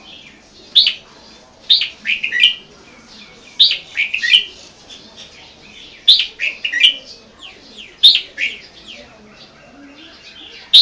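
Caged red-whiskered bulbul singing: short, bright phrases of a few quick notes, repeated every second or two.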